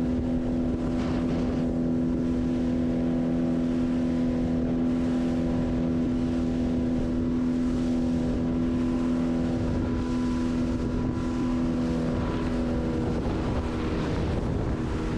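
Motorboat engine running at a steady cruising speed while the boat is underway, its pitch holding constant, with wind on the microphone.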